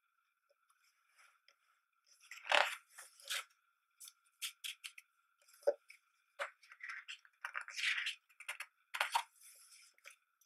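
Thick pages of a hardcover photobook being turned by hand: a series of short paper swishes and rustles, the loudest about two and a half seconds in and again around eight to nine seconds in.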